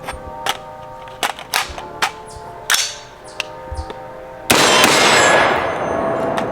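A string of sharp metallic clicks and clacks, typical of a magazine change and the bolt being dropped on an AR-15-style 5.56 rifle, then about four and a half seconds in a single loud rifle shot that rings out and echoes for over a second.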